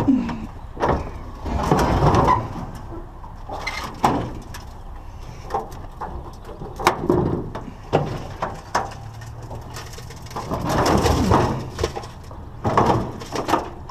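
Irregular knocks, clunks and clicks of hard objects being handled and moved, with two longer stretches of scraping or rustling, one about two seconds in and one near the end.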